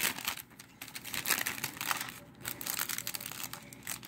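Clear plastic shrink wrap being peeled and pulled off a Blu-ray case, crinkling and crackling irregularly with a few short pauses.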